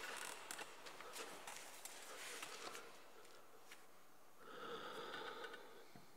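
Quiet room with faint scattered clicks, and one short breath from a person about four and a half seconds in.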